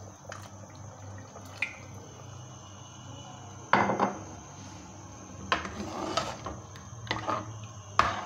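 Metal ladle knocking and scraping against the side of a metal pressure-cooker pot while stirring thin meat gravy. One loud clank comes nearly four seconds in, and several more knocks follow in the last few seconds.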